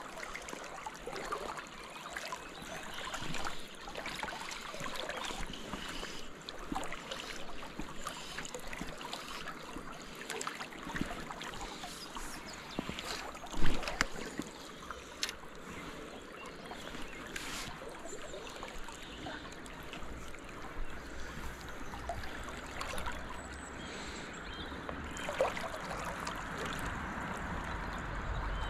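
Flowing river water rushing and lapping steadily around a wading angler. A single sharp knock comes about halfway through.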